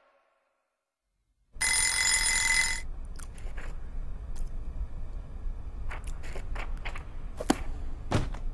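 About a second and a half in, a bell rings loudly for roughly a second. Then come softer papery flaps and light taps from a picture book fluttering its pages.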